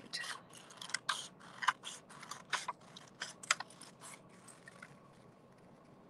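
Scissors snipping through paper in a quick series of short cuts, trimming a paper circle; the snips thin out and stop after about four seconds.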